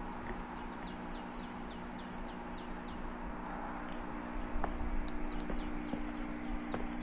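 A songbird singing a fast string of short, high, downward-slurred notes, about four a second, in two runs with a pause between them.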